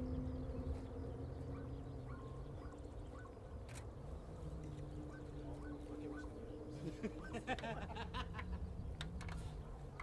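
Low, steady rumble of a distant Boeing 787-8 jet taxiing slowly at idle, with a faint engine hum that fades in the first second. About seven seconds in, a short flurry of bird calls.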